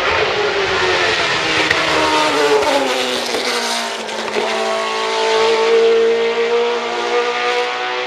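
Group C sports-prototype race car engine running at speed. Its pitch drops as the car goes past about two to three seconds in, then holds a steady note as the car pulls away into the corner.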